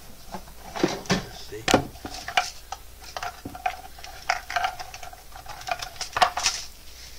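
Irregular clicks, clatter and rustling of a pile of patches and small items being handled and sorted by hand, with a few sharper knocks.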